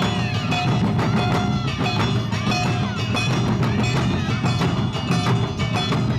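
An awa odori band playing the fast two-beat dance accompaniment: a dense clatter of drum and struck-metal beats under high melody lines that bend up and down in pitch.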